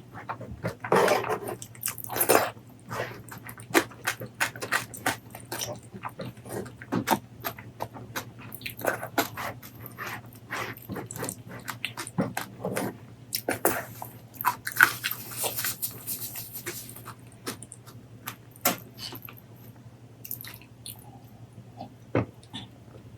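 Close-miked eating: wet chewing and lip smacking in irregular clicks, with a longer, noisier stretch about a second in and another past the middle.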